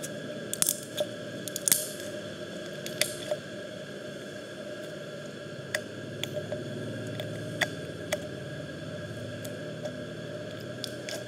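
Clear yellow slime being squeezed and pressed by hand, giving scattered sharp clicks and pops, several close together in the first two seconds and then a few seconds apart.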